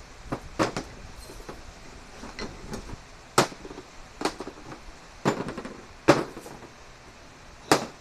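Irregular sharp clanks and knocks of metal welding tools being handled and set down on a wooden worktable, about ten over several seconds, the loudest about three and a half seconds in, about six seconds in and near the end.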